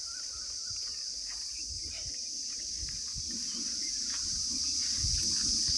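Chorus of insects making a continuous high-pitched drone that slowly grows louder, with a low rumble underneath.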